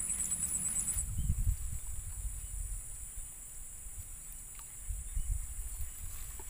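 High-pitched insect drone that pulses rapidly for about the first second and then holds steady. Irregular low rumbles come and go, loudest about a second in and again around five seconds.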